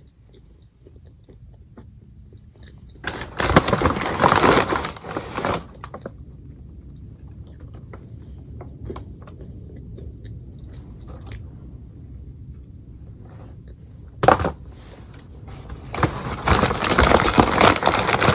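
A person eating fast food: quiet chewing and small clicks of the mouth, broken twice by loud stretches of rustling food packaging, each about two and a half seconds long, a few seconds in and near the end.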